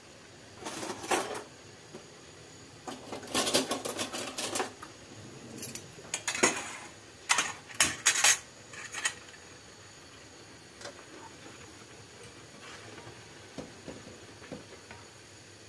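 Metal pans clattering and scraping on the gas stove's grate in several short bursts, then a few faint ticks. Underneath runs a faint steady hiss of syrup simmering.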